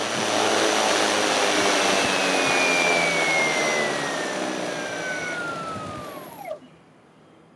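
3D-printed Halbach-array brushless DC motor driving a 20-inch propeller: a loud rush of propeller wash with a motor whine. About two seconds in the whine starts to fall steadily in pitch as the motor spins down, and the sound fades and stops about six and a half seconds in.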